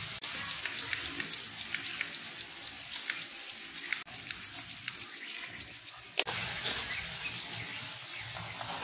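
A knife slicing through a rice cake on banana leaves, the blade scraping and crackling against the leaf in many small clicks. There is one sharper click about six seconds in.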